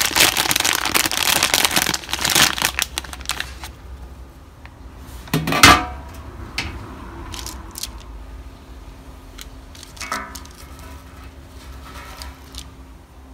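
Crinkling of a plastic marshmallow bag being squeezed and handled, stopping after about three and a half seconds. About five and a half seconds in comes one sharp knock, the loudest sound, then a few faint clicks of light handling.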